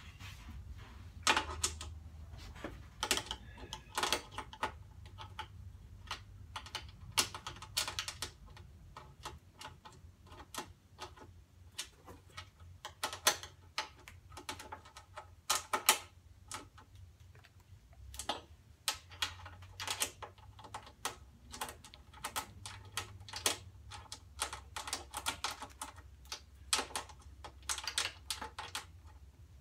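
Irregular clicks and metallic clinks of a socket ratchet and wrench tightening 10 mm bolts on a steel welding cart, some clicks coming in quick runs.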